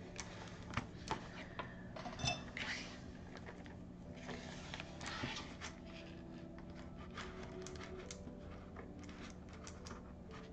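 Quiet handling of a cellophane-wrapped cardboard box of paint pens on a desk: scattered light clicks and taps, with short bursts of rustling a few seconds in.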